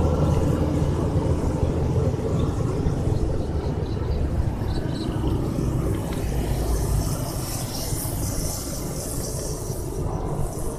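An engine running steadily with a low hum, easing a little in the second half, with a high hiss coming in near the end.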